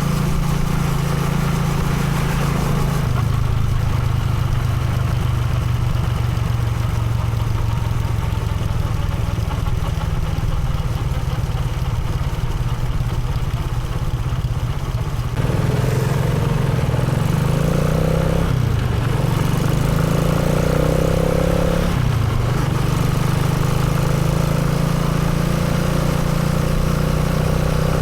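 Motorcycle engine running steadily. About halfway through the note grows fuller and a little louder, then dips briefly in pitch twice before settling again.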